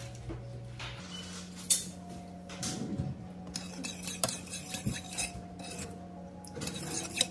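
A metal spoon stirring sugar, water and honey in a stainless steel saucepan, scraping and clinking against the pan's bottom and sides as the sugar is melted for a glaze. Irregular scrapes and clinks, the sharpest one a little under two seconds in.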